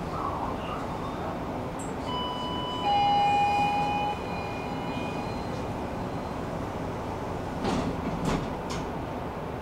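Tram running with a steady rumble. About two seconds in, a horn sounds as a held tone of two pitches for about two seconds, the louder part cutting off sharply. Near the end come a few sharp knocks from the running gear.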